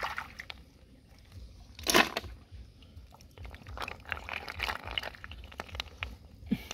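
Hands scooping and sloshing in shallow, muddy stream water while picking up snails, with one sharp splash about two seconds in and scattered light clicks of snail shells knocking together.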